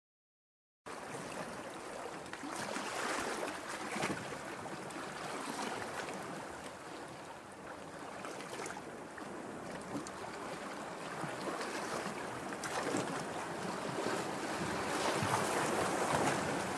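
Sea surf washing on a shore, a steady wash that swells and ebbs slowly, beginning about a second in.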